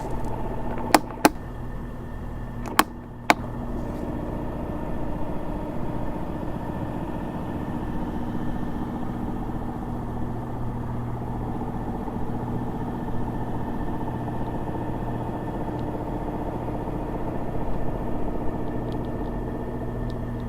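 Iris Ohyama ENC-23K circulator fan running with a steady hum made of several fixed tones: a new abnormal noise that the owner believes the replacement unit did not make at first. Four sharp clicks come in the first few seconds, and after the last one a further tone joins the hum.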